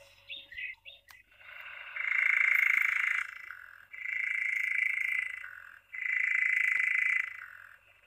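Recording of a European nightjar churring, played through a children's sound book's small speaker: three long, even churrs of about two seconds each, with a click about a second in.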